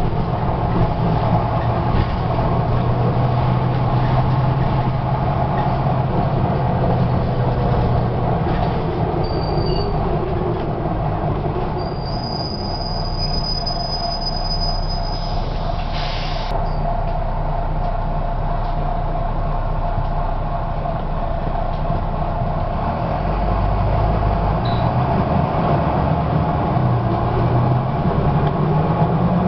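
Cabin noise on the upper deck of a Volvo B9TL double-decker bus on the move: its six-cylinder diesel drones steadily under load over road rumble and body rattle. A single sharp knock sounds a little past halfway, and the engine note rises near the end.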